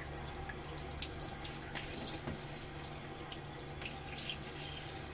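Bathroom sink tap running steadily while a face is rinsed with splashes of water from the hands, a few small splashes and drips standing out.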